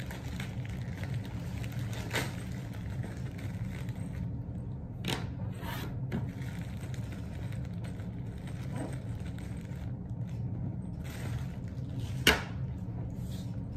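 Wooden flat-pack furniture panels and packing material being handled: scattered scraping, rustling and small clicks, with one sharp knock of a panel about twelve seconds in, over a steady low hum.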